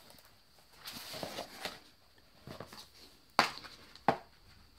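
Paper and plastic inserts of a K-pop album being handled and pulled out: a soft rustle, then two sharp taps a little under a second apart.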